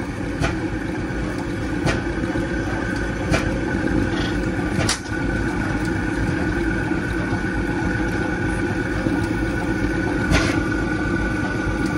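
100 hp Chicago Pneumatic two-stroke semi-diesel stationary engine running, a steady low mechanical noise. Sharp knocks come about every second and a half, with none for about five seconds in the middle.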